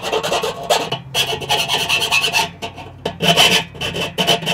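Hand file rasping back and forth on the edge of a freshly drilled hole in sheet metal, in a run of repeated scraping strokes with short gaps between them. It is deburring the hole, knocking off rough edges and loose metal.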